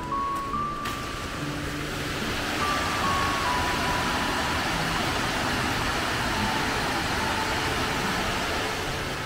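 Mountain stream rushing over rocks in a small cascade, a steady rush of water, with a few soft background music notes over it.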